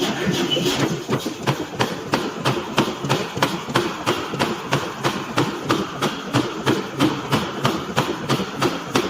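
Forging hammer striking hot metal in a fast, even rhythm of about four blows a second, over a continuous machinery rumble.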